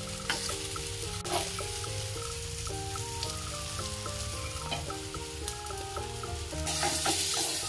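Pieces of besan katli shallow-frying in mustard oil in a pan, a steady sizzle that grows louder near the end, with a few sharp clicks from the spatula. A background music melody plays along.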